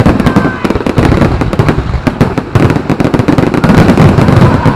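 Aerial fireworks display: shells bursting overhead with dense crackling and popping, many reports in quick succession.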